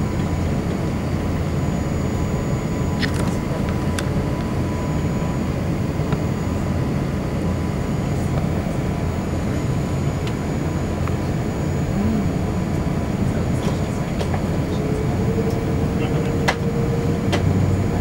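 Cabin noise of an Airbus A380 on the ground before take-off, its Rolls-Royce Trent 900 engines at low power: a steady low rumble with a faint steady whine. A second, lower tone comes in about fifteen seconds in, and there are a few light clicks.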